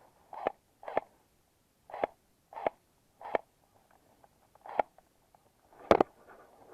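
An airsoft rifle firing single shots, seven sharp cracks at uneven intervals, the last one the loudest.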